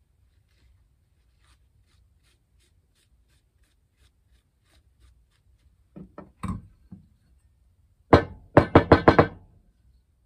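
Model A Ford oil pump being knocked against a wooden workbench to beat grit out of its clogged intake screen: a few knocks about six seconds in, then a quick run of six or seven loud knocks near the end.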